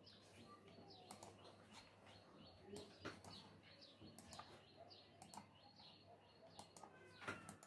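Faint bird chirping, with scattered sharp clicks of a computer mouse.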